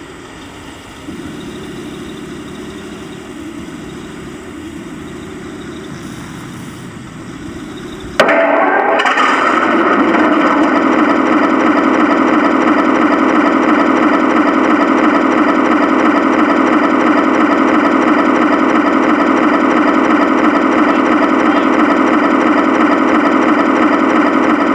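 A 1/16 Tamiya RC tank's onboard sound unit playing a simulated tank engine idling through its small speaker. About eight seconds in, after a sharp click, it suddenly becomes much louder and fuller and stays steady.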